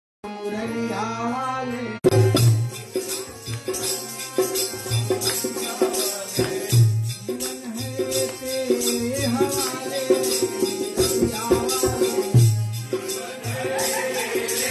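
Kirtan music: a harmonium plays a short opening, then about two seconds in a dholak and jingling hand percussion come in together, keeping a steady beat under the harmonium's held chords.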